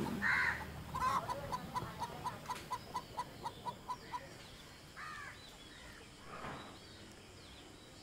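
Chicken clucking: a quick, even run of about four clucks a second that fades away over a few seconds, followed by a few fainter bird calls.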